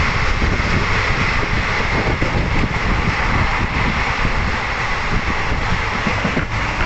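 Moving passenger train heard from a phone held out of the coach window: steady wind buffeting the microphone over the rumble of the wheels on the track.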